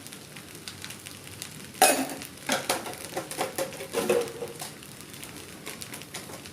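Fried rice sizzling in a pan while a spatula stirs it, scraping and knocking against the pan in a run of irregular strokes from about two seconds in, the first one the loudest.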